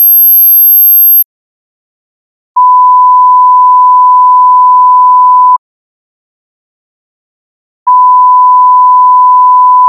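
Pure sine-wave test tones for frequency ear training: a very high tone, around 12.5 kHz, stops about a second in; after a short silence a steady 1 kHz tone plays for about three seconds, and after another gap the same 1 kHz tone starts again near the end.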